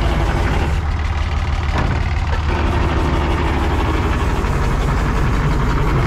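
Ursus C-360 3P tractor's four-cylinder diesel engine running steadily, heard from inside the cab.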